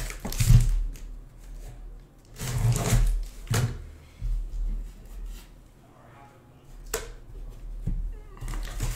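Cardboard case box being handled and slid across a table: several short scraping rustles and knocks, then a sharp click about seven seconds in.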